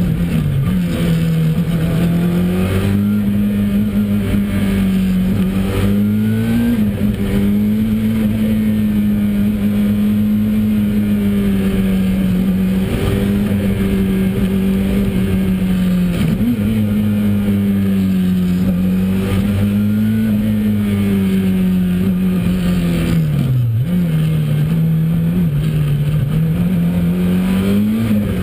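Ford RS200 Evo rally car's turbocharged four-cylinder engine driven hard, heard from inside the cabin. The engine note rises and falls with throttle and gear changes, with brief drops in revs about 6 and 16 seconds in and a deeper drop about 23 seconds in before it climbs again.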